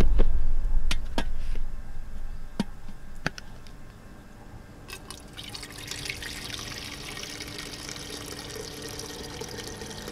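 A few light clicks and knocks as a glass jug is handled. Then, from about five seconds in, water pouring steadily from a plastic pitcher into the glass jug.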